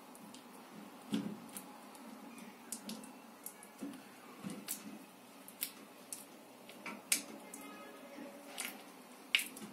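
Plastic uncapping fork scratching the wax cappings off a frame of sealed honeycomb, making soft scraping with sharp irregular clicks about once a second, as the honey cells are opened for extraction.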